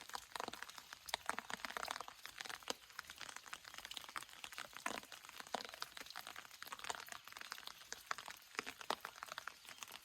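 Rain falling: a dense, irregular patter of drops ticking and tapping over a light hiss.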